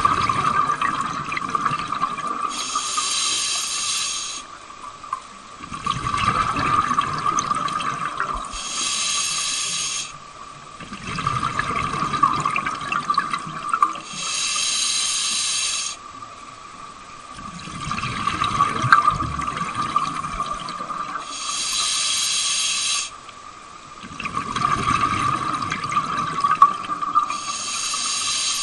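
Scuba diver breathing through an open-circuit regulator underwater: a hiss on each inhale of about two seconds, then a longer rush of exhaled bubbles, repeating about every six seconds, five breaths in all. A steady faint whine runs underneath.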